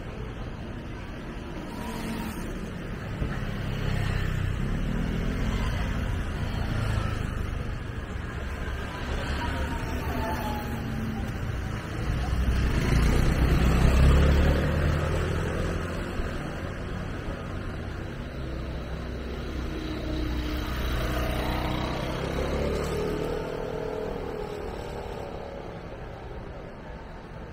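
Street traffic: motor vehicles passing close by with a steady low rumble. The loudest one goes past about halfway through.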